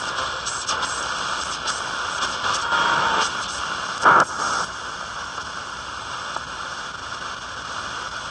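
Shortwave static and hiss from a Yewrich YR-RU8 portable DSP radio's speaker as its analog dial is tuned across the band. Brief tones and snatches of signal pass by, and the loudest is a short burst about four seconds in.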